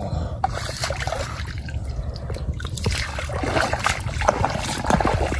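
Bare feet splashing and squelching through shallow water and soft mud in a string of irregular wet steps, busier in the second half, over a steady low rumble.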